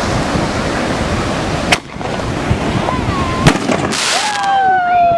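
Consumer fireworks going off: two sharp bangs over steady wind and surf noise, then a hiss about four seconds in followed by a long, slowly falling tone.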